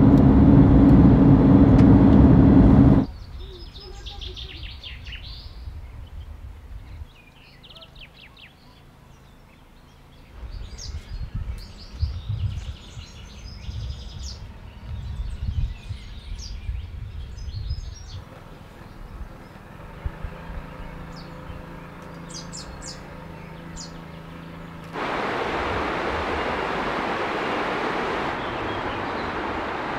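Road and engine noise inside the Toyota expedition camper for the first three seconds, then birdsong among trees with irregular low rumbles. Near the end, the steady rush of a fast mountain river takes over.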